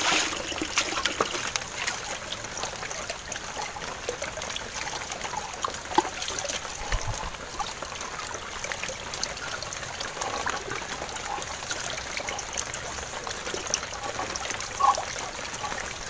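Shallow water trickling steadily, with small splashes and a few light knocks from hands rinsing a white plastic pipe in it.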